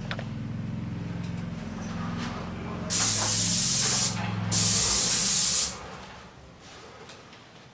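Airless paint spray gun hissing in two bursts of about a second each, with a short pause between, as it lays the final coat of paint on cabinet shelves. A steady low hum runs beneath and fades after the second burst.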